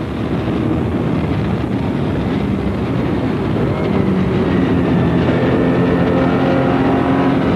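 Racing car engine running hard at speed, heard from on board the car; its engine note settles into a steady pitch about halfway through.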